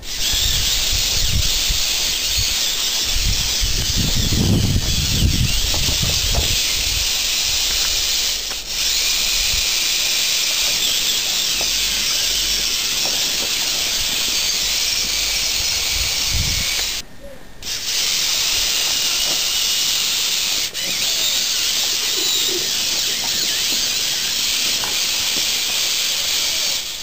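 Steady high whirring hiss of a Lego Technic 8x8 trial truck's 9V RC motors and gear trains as it crawls over wooden blocks, with low rumbles about four to six seconds in and again around sixteen seconds.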